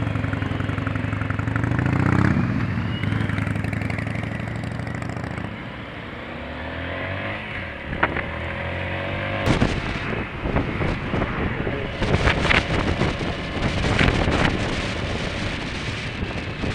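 Motorcycle engine pulling away, revving up over the first couple of seconds, then running on more steadily after a gear change. From about halfway on, wind buffets the helmet-mounted microphone in gusts.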